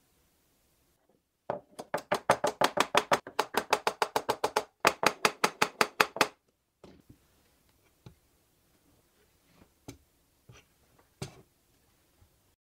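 A rapid run of sharp clicks, about six a second, for several seconds with one short break, from a wooden-handled hand tool working a fitting on an electric planer's aluminium rig frame. Then a few scattered light taps and knocks as the parts are handled.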